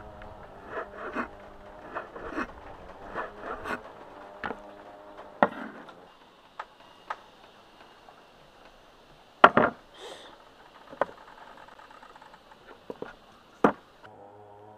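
Knife chopping pork liver on a wooden cutting board, a run of knocks about two a second for the first several seconds. Then a few sparser, louder knocks and scrapes as the knife blade gathers and slides the cut pieces. Music starts near the end.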